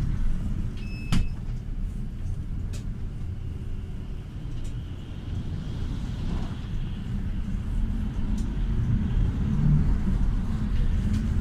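Cabin noise inside a GAZ A64R45 minibus on the move: a steady low rumble of the engine and the road. A sharp click or rattle sounds about a second in, and another near three seconds.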